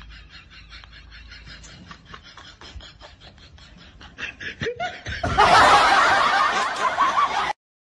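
A person snickering in quick short bursts, then a much louder burst of noise from about five seconds in that cuts off suddenly.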